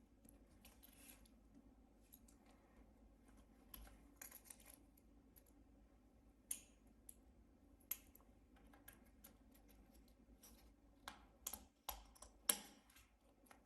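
Faint, scattered clicks and taps of small laptop components and tools being handled and fitted into the chassis. A few sharper clicks come in the middle and a cluster of louder ones near the end.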